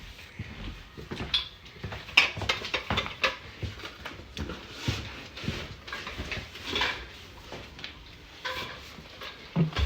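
Irregular light knocks and clatter, some sharp clicks among them.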